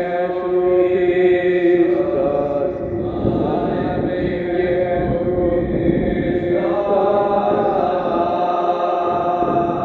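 A single voice chanting a long, held sacred syllable (Amen/Om) on a steady pitch, rich in overtones. The vowel colour shifts partway through, with the brighter upper overtones dropping away about three seconds in and returning near seven seconds.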